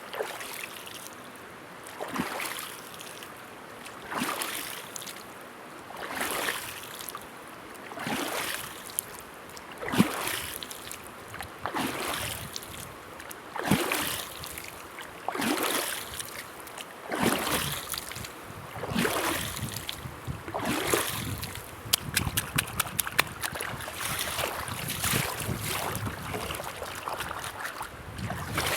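River water sloshing in regular surges about every two seconds, with a brief run of quick clicks a little past the middle.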